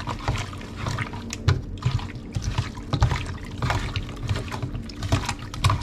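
Pieces of banga mary fish in beaten egg and seasoning being mixed in a bowl: irregular wet squelches and small clicks.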